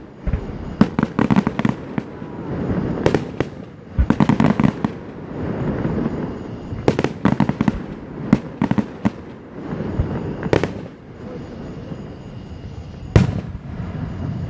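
Fireworks going off one after another: sharp bangs and crackling bursts throughout, the loudest bang coming near the end.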